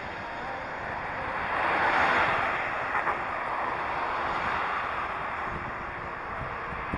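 Rushing wind and road noise on a moving bicycle, swelling louder about two seconds in, with a light knock about three seconds in.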